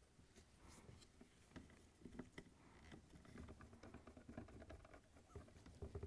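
Faint, irregular clicks and scratches of a 1/4-inch nut driver turning screws out of a plastic refrigerator air handler housing.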